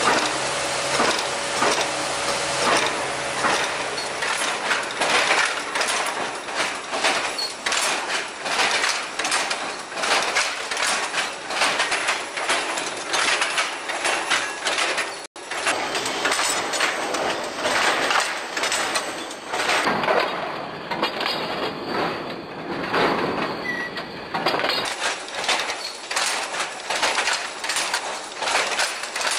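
Power-driven jacquard loom weaving a rug: a fast, continuous mechanical clatter of many knocks, with a momentary gap about halfway through.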